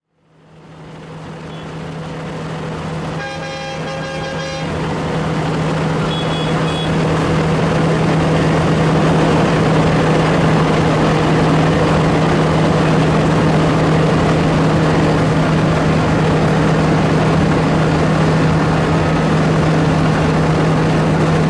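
A tractor engine running steadily at an even pitch, fading in over the first few seconds. A vehicle horn sounds once for about a second and a half, a few seconds in.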